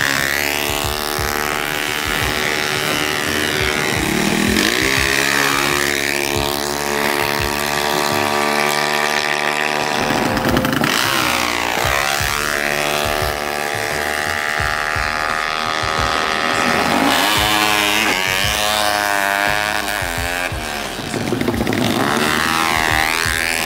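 Drag-racing motorcycle engines revving, their pitch climbing and dropping back again and again.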